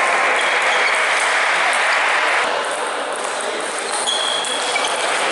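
Table tennis ball being struck and bouncing in a rally, short sharp pings off the bats and table, over the steady din of a busy sports hall that drops somewhat about halfway through.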